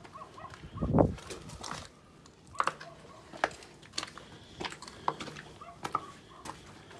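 Footsteps crunching over broken roof slates and rubble on a concrete path, a series of irregular sharp crunches. About a second in, a brief low rumble on the microphone is the loudest sound.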